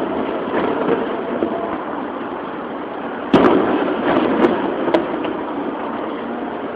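Distant aerial firework shells bursting: one sharp, loud bang about three seconds in, then a couple of fainter pops, over steady background noise.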